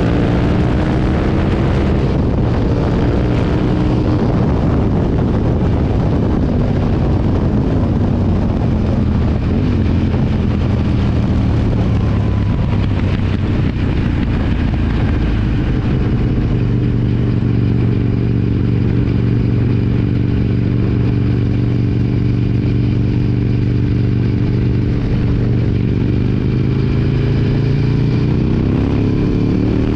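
Aprilia Tuono V2 motorcycle engine heard from onboard while riding, with wind noise. The revs rise and fall through the first ten seconds, hold steady at cruising speed, then climb again near the end.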